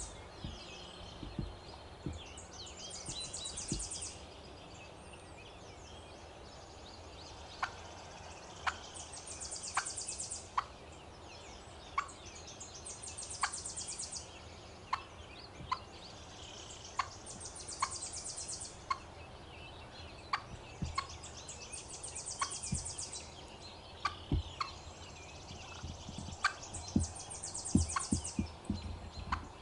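Young wild hen turkey clucking: short sharp single clucks about once a second, starting several seconds in, over a high trill that repeats every few seconds.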